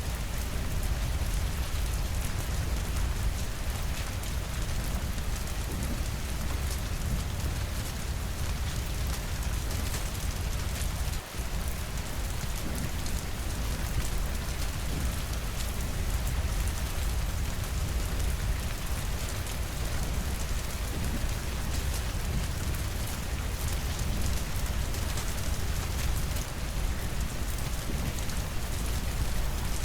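Steady rainfall: an even hiss of rain over a deep low rumble, with a momentary dip in level a little over eleven seconds in.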